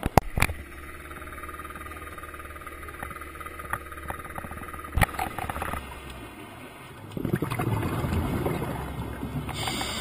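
Underwater sound picked up through a GoPro's waterproof housing: a few sharp knocks at the start and again about five seconds in, over a faint steady drone. From about seven seconds in, the loud gurgling rush of a scuba diver exhaling through a regulator, with bubbles streaming past the camera.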